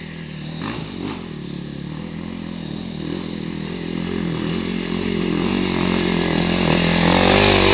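Dirt bike engine revving up and down as it climbs a steep hill, growing steadily louder as it approaches and loudest near the end.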